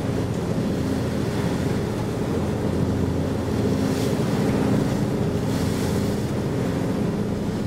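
Boat engine running steadily, under wind on the microphone and the sea washing along the hull, with a couple of louder splashes about four and six seconds in.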